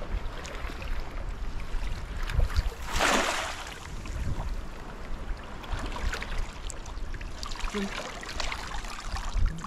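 A cast net splashing down onto shallow water about three seconds in, then water sloshing and dripping as the net is hauled back up, over a low steady rumble.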